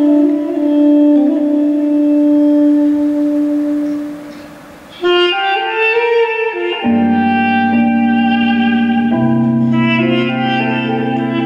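Armenian duduk holding one long, steady note that fades away about four seconds in. After a brief dip it starts a new melodic phrase, and keyboard chords with low bass notes come in underneath about seven seconds in.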